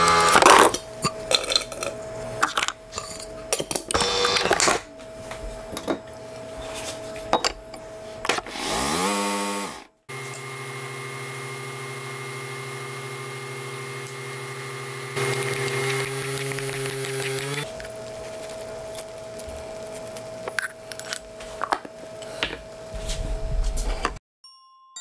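Clinks and knocks of a mug and kitchen things being handled, then a brief rising whine. A single-serve coffee maker's pump hums steadily for about seven seconds as it brews into the mug, getting louder near the end, and is followed by more clinks.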